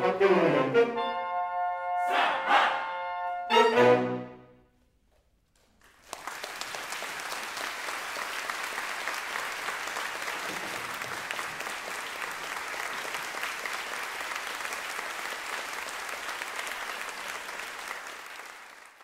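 Saxophone ensemble playing its closing chords: a held chord, then a final short chord about four seconds in. After a second and a half of quiet, the audience applauds steadily, fading out at the very end.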